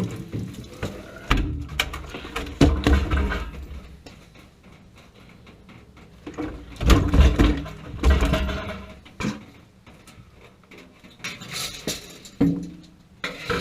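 Irregular clunks, knocks and rattles of metal plumbing parts being handled, in two busier stretches with quieter gaps between.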